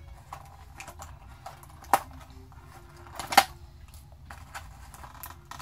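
Hard clear plastic case being handled and pried at: scattered light clicks and crackles, with two sharper plastic snaps, one about two seconds in and a louder one about three and a half seconds in.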